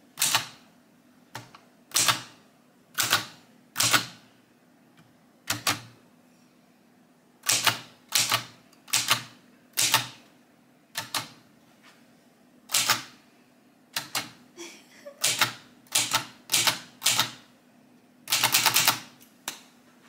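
Pink 1960s Czechoslovakian manual portable typewriter being typed on slowly: single sharp keystrokes at uneven spacing with short pauses between them, then a quick run of several strokes near the end.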